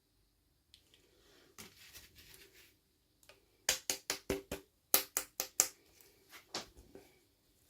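Hands handling small plastic toys and packaging: a faint rustle, then two quick runs of sharp clicks and taps about halfway through, and a couple more near the end.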